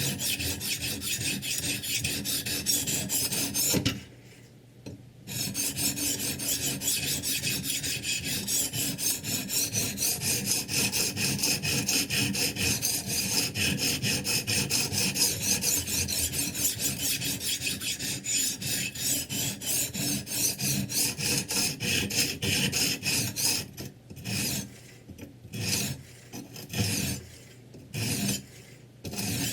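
Sharpening stone of a Ruixin Pro 3 guided knife sharpener rasping quickly back and forth along a kitchen knife's edge. The strokes stop for about a second four seconds in, and break off several times near the end.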